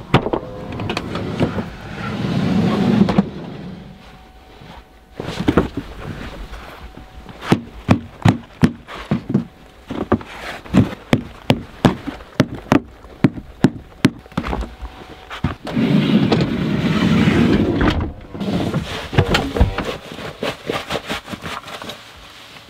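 Mercedes Sprinter van's sliding side door unlatching and rolling open, then a run of sharp knocks, about two a second, as snow-caked boots are knocked against the door step to shed the snow. The door rolls again near the end and closes with a thud.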